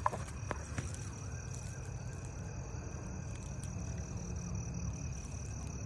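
Crickets chirping steadily in a continuous high, finely pulsing trill, with a few sharp clicks in the first second.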